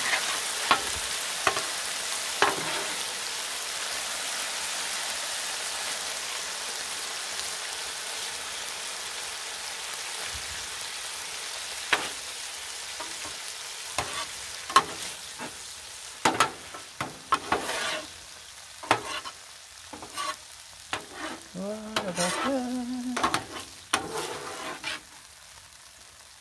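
Chili of ground meat, beans and tomatoes sizzling on a Blackstone steel flat-top griddle, with a metal spatula scraping and clacking across the plate as it is stirred and pushed together. The sizzle fades steadily, and the sharp spatula scrapes and clicks stand out more in the second half.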